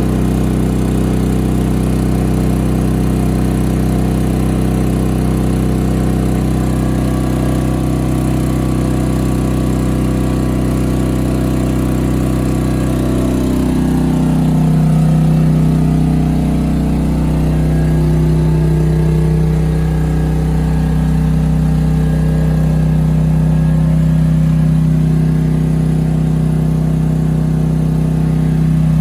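maXpeedingrods 3500 W portable inverter generator running under a load of about 1500 watts. Its engine speeds up about halfway through, then holds the higher speed.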